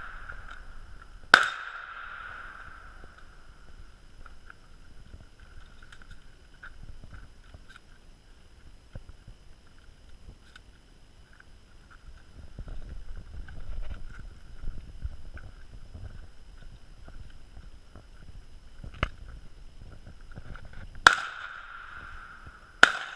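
Handgun shots, each with a short echoing tail: one loud shot about a second and a half in, then a long gap with some low rumbling, a quieter shot, and two more loud shots near the end.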